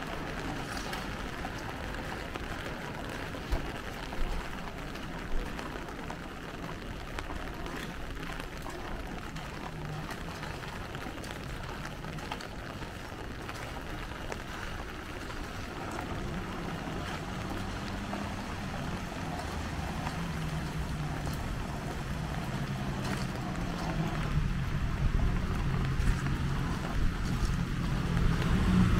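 Steady hiss of light rain and wet traffic on a city street, with a few light knocks a few seconds in. In the second half a motor vehicle's engine approaches and grows much louder near the end.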